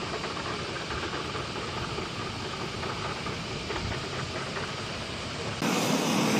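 Steady rushing noise, then a sudden jump near the end to louder, hissing engine noise of MV-22 Osprey tiltrotors running on the flight line.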